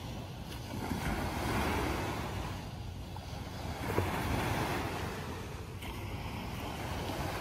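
Small waves breaking and washing up a sandy beach, the surf swelling about a second in and again about four seconds in, with wind rumbling on the microphone.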